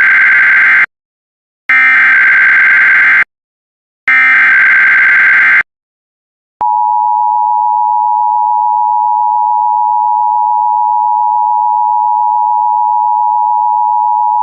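Emergency Alert System alert: three bursts of SAME digital header data, each about a second and a half long with short silent gaps, then about eight seconds of the steady two-tone EAS attention signal, which cuts off suddenly.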